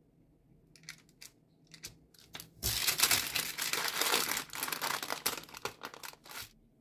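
Crinkling and rustling of a sheet of wrapping being handled for about four seconds, after a few light clicks.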